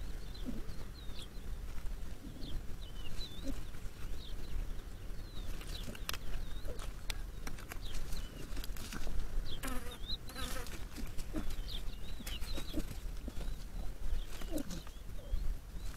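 Outdoor ambience: short, high chirps come and go about once a second over a steady low rumble, with a few sharp clicks around the middle.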